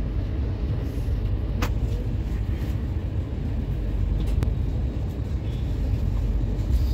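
Passenger train running along the track, a steady low rumble with two sharp clicks, one about one and a half seconds in and one near the middle.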